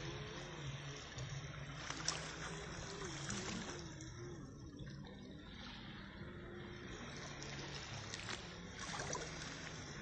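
Small waves lapping and washing up on a sandy shore, faint, with a low steady hum underneath.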